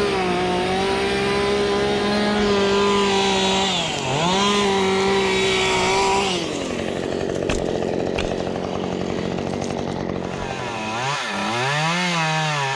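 Two-stroke chainsaw running at high revs with a steady high whine that dips briefly twice. From about the middle it turns rougher and noisier, and near the end it revs up and down a couple of times.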